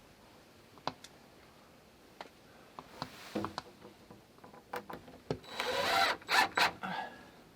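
Tools and wood being handled: scattered sharp clicks and knocks, then a few scraping, rubbing strokes on wood past the middle.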